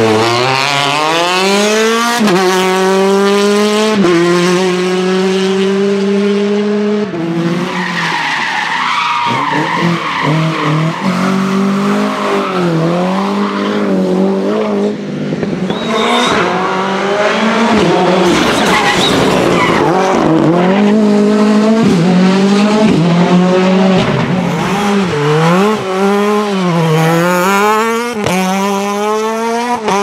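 Rally cars at full throttle on stage, among them an Opel Kadett C and an Opel Astra kit car. The engines rev hard, climbing in pitch and dropping at each gear change, one car after another.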